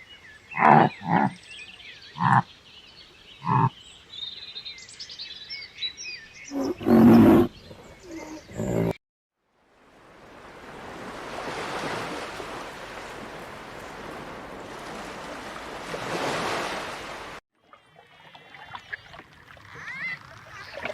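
Farm animals calling: about half a dozen short, loud calls with a faint, higher warbling behind them. After a cut, a steady rushing noise for several seconds, then faint chirping near the end.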